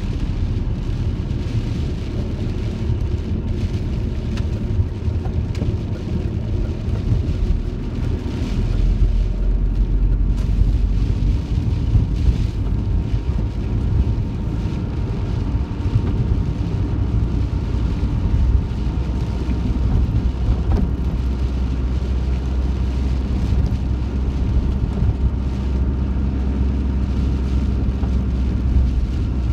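Heavy rain on a van's roof, heard from inside the van while it is driven, over a steady low rumble of engine and road that grows heavier about eight seconds in.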